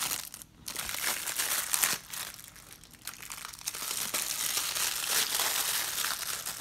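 Plastic toy packaging crinkling as it is handled and pulled open, with brief lulls about half a second in and again around three seconds in.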